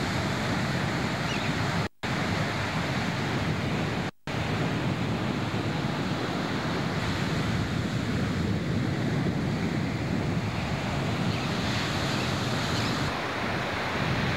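Surf breaking steadily on a beach, with wind buffeting the camcorder microphone. The sound cuts out briefly twice, about 2 and 4 seconds in.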